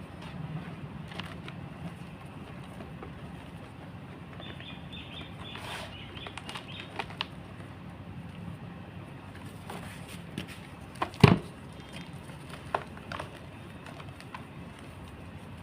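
Block of gym chalk being crushed, with scattered small crunches and crackles and one much louder crunch about eleven seconds in, over a low steady hum.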